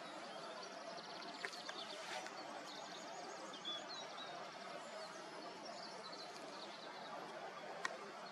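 A small songbird sings high, rapid trills and short chirps over a steady outdoor hiss, with a sharp click near the end.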